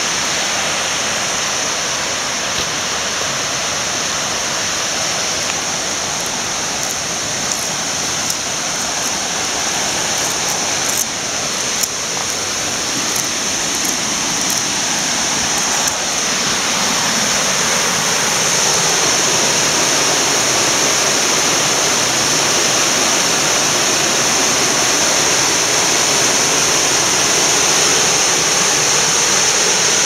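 Rushing water of a creek and waterfall: a steady, even hiss that grows louder about halfway through as it comes closer.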